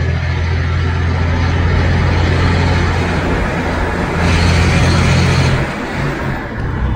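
Chevrolet Blazer's engine and exhaust rumbling as it drives, a steady low drone. About four seconds in it gets louder for a second and a half, then drops briefly before settling back.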